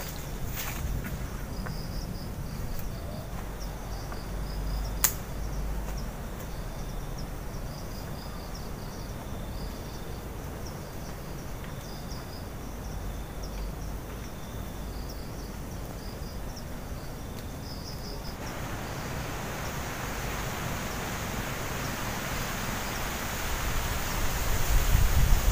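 Forest ambience of insects chirping in short repeated high pulses over a steady high drone, with one sharp click about five seconds in. From about two-thirds of the way through, the chirping gives way to a rustling noise that grows louder toward the end.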